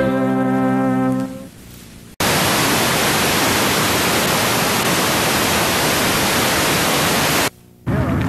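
Background music ends on a held chord that fades out over about a second and a half. About two seconds in a loud, steady hiss of videotape static starts abruptly, lasts about five seconds and cuts off suddenly near the end.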